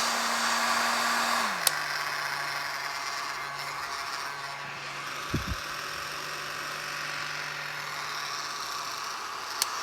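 Resanta 2000 W heat gun running with a steady fan whir, working properly. A click about one and a half seconds in comes as the motor hum drops to a lower pitch, and another click near the end comes as it starts to rise again, as when the switch is moved between settings. A short low thump comes about halfway through.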